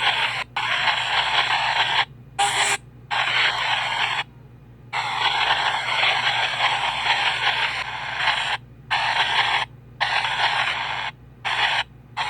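PXB 07 spirit box sweeping through radio frequencies: a loud rush of static and radio fragments, broken by brief silent drop-outs about eight times, the longest about half a second.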